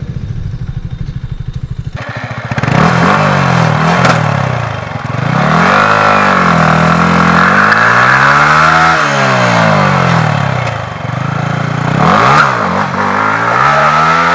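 Motorcycle engine idling steadily for about two seconds, then revving up and dropping back in several long sweeps.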